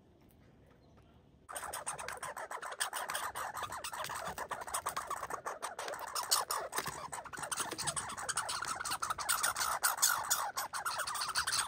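American red squirrel chattering, a long, very rapid rattling call that starts suddenly about a second and a half in and runs on without a break. This rattle is the species' territorial call.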